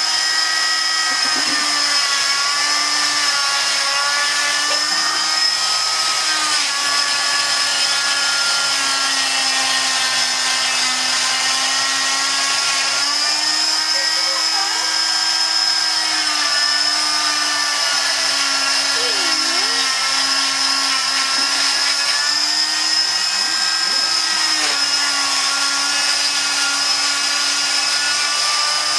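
Oscillating cast saw running continuously as it cuts through a child's arm cast, a steady, loud motor whine. Its pitch dips and recovers several times as the blade is worked along the cast.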